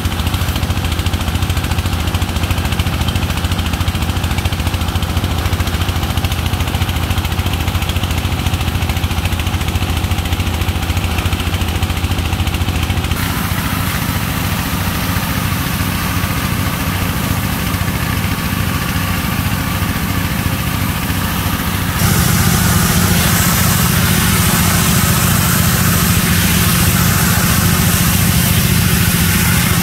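A motor-driven water pump running steadily while a hose sends a strong jet of water splashing onto wet sand. The splashing gets louder partway through and again later on.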